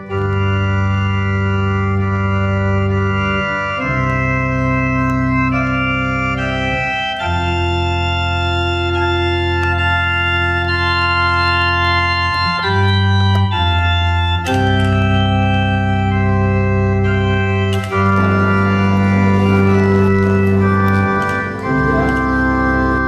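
Electronic organ playing a slow piece in sustained chords over held bass notes, the chords changing every second or two.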